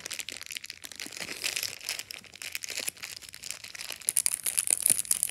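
Clear plastic packaging being handled and crinkled by hands, a stream of irregular crackles that grows louder and sharper about four seconds in.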